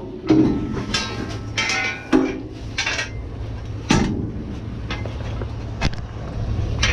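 Discarded junk and metal clanking and knocking as a dumpster's contents are rummaged through: a string of irregular hits and clinks, some ringing briefly.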